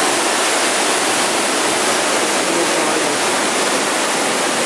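Waterfall pouring into its plunge pool: a loud, steady rush of falling water.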